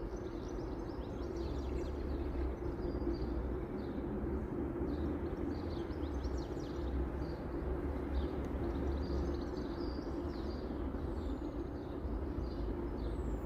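Low rumble and steady hum of two Class 90 electric locomotives hauling a container freight train, with small birds chirping over it.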